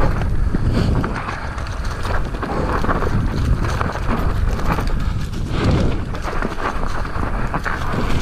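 Electric mountain bike ridden along a dirt trail: a continuous rumble of tyres over rough ground, with a dense irregular clatter of the bike rattling over bumps, and wind buffeting the microphone.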